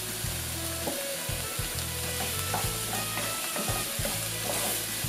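Chopped onions sizzling in hot oil in a nonstick pan as they sauté, with a wooden spatula stirring and scraping through them in irregular strokes.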